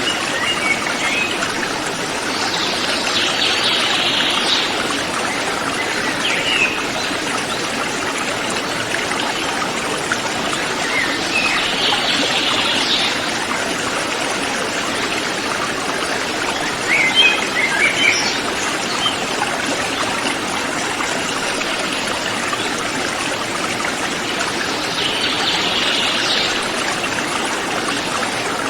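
Mountain river flowing over rocks, a steady rush of water. Forest birds give short chirps and brief trills over it several times.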